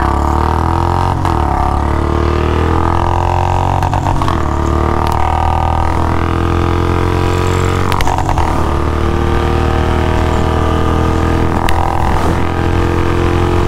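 Royal Enfield Bullet 350's single-cylinder engine at full throttle, pulling hard from a standing start through the gears. The pitch climbs slowly and drops back at gear changes about 4, 8 and 12 seconds in.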